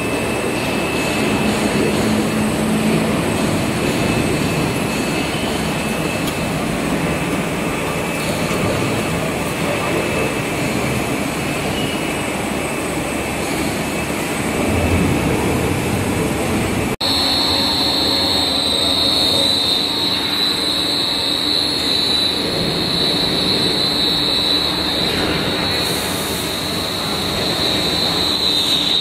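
SJ110 single-stage plastic pelletizing extruder line running, with PE/PP scrap being fed: a loud, steady machine noise. After a sudden cut about 17 seconds in, a steady high whine is added on top.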